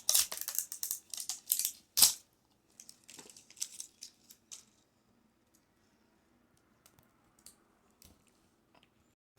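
Paper and plastic wrapping of an L.O.L. Surprise ball being torn and crinkled by hand, with one sharp snap about two seconds in. The crinkling stops about halfway through, leaving a few faint clicks.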